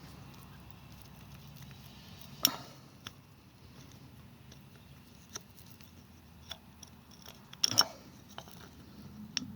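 Sharp metallic clicks and small taps as the timing-chain cam sprocket and its bolts are handled while a bolt is started by hand. One loud clack comes about two and a half seconds in and a quick double clack near the end.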